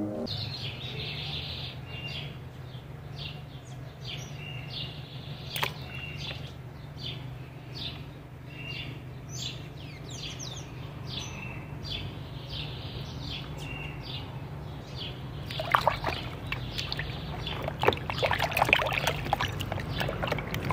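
Small birds chirp repeatedly over a steady low hum. About fifteen seconds in, water starts splashing and sloshing as a hand moves plastic toy dinosaurs through a plastic tub of water.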